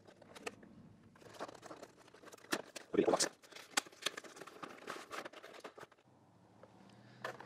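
Cardboard packaging and a plastic wrench tray being handled during unboxing: rustling, scraping and a run of light knocks, loudest about three seconds in, fading to a faint steady hum after about six seconds.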